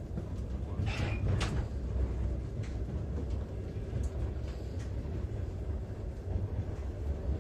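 Passenger train running, heard from inside the carriage: a steady low rumble with a few short sharp clicks about a second in.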